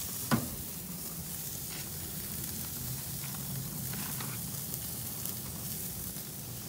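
Thin seasoned beef cecina sizzling on a hot grill grate, a steady hiss with scattered small crackles, and one sharp click about a third of a second in.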